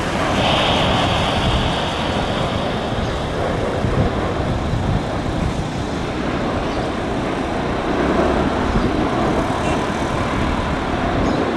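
Boeing 787 jet engines running as the airliner touches down and rolls out along the runway: a steady roar, with a high whine that fades after the first few seconds.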